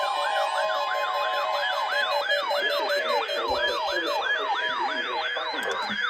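Electronic siren sweeping quickly up and down in pitch, about three sweeps a second, with a fainter, higher sweep layered above it.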